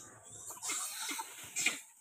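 Gray langurs in a troop squabbling: a few short calls over rustling leaves and branches as they move through the tree, the loudest sharp call near the end.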